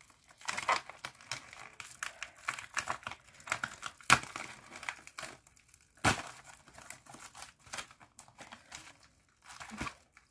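Packaging crinkling and rustling as it is handled and unwrapped, with a couple of sharper crackles about four and six seconds in.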